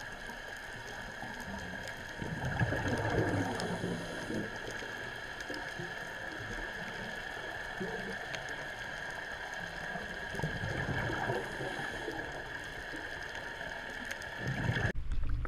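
Steady hum made of several held tones, with swells of water gurgling about two and a half seconds in and again around ten seconds; it cuts off suddenly just before the end.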